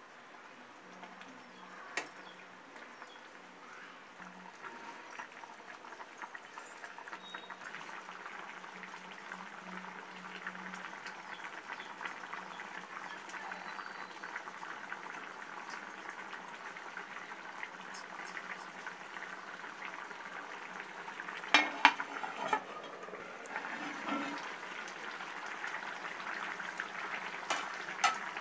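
Fish curry bubbling at a boil in a pan, the bubbling growing gradually louder. A few sharp metallic clinks stand out, the loudest a pair about twenty-two seconds in.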